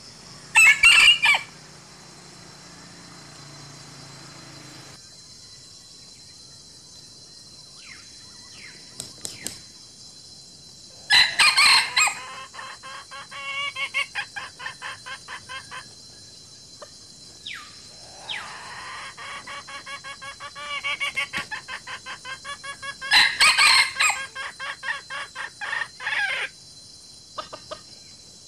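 Chickens calling: three loud, short crows spaced roughly eleven seconds apart, the later two each followed by several seconds of quick, rhythmic clucking, over a steady high-pitched buzz.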